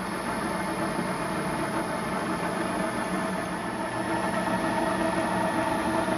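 A 1927 Oesterlein universal milling machine running steadily while hobbing a spur gear: an even mechanical hum with several constant tones from the drive and gear train over a bed of machine noise.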